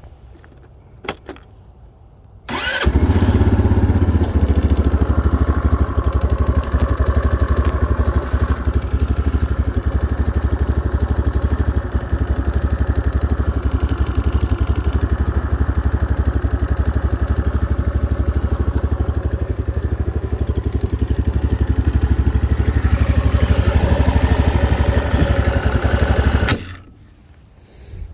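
A couple of clicks, then a youth ATV's small engine starts suddenly about two and a half seconds in. It runs steadily at an even level without revving, then shuts off abruptly near the end.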